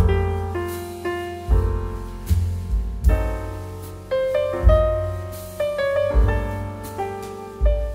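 Background piano music: a slow melody of struck notes that ring and fade, over low bass notes.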